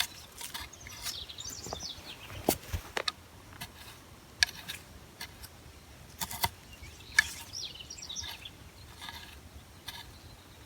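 Small hand weeding tool (a dandelion weeder) striking and scraping through garden soil in short strokes: irregular sharp clicks. A bird chirps twice in the background, in quick descending runs.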